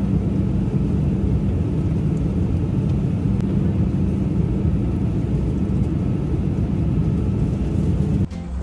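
Airliner cabin noise in flight: a steady low drone with a hum. It cuts off suddenly near the end as acoustic guitar music begins.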